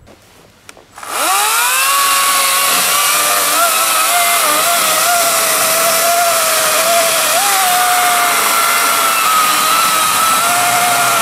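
EGO CS1605E 56V brushless battery chainsaw with a 16-inch bar, whining up to speed about a second in and then cutting steadily through a log, its pitch dipping and wavering as the chain loads up in the wood.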